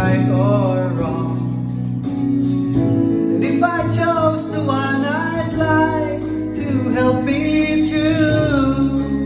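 Karaoke backing track with strummed acoustic guitar and a voice singing a slow melody over it.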